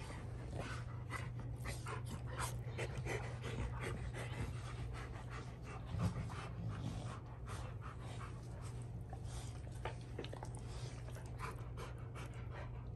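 Rottweilers panting quickly and hard while play-wrestling, over a steady low hum, with a soft low thump about six seconds in.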